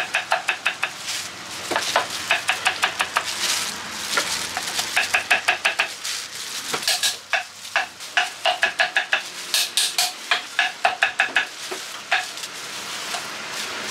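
Crinkle-cut knife chopping green mango on a wooden cutting board: quick runs of sharp chops, about five or six a second, each with a short metallic ring from the blade. The runs come in several bursts with short pauses and stop near the end.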